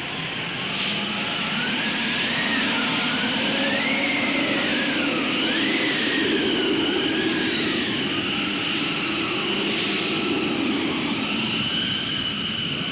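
Desert wind blowing steadily with a rushing hiss, a faint whistling tone wavering up and down through it, and occasional brief gusts.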